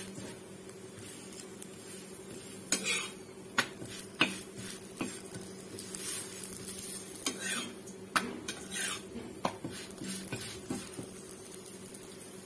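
A flat metal spatula scraping and tapping on an iron tawa in scattered sharp strokes as a chapathi is pressed and turned, over a faint sizzle of the bread cooking.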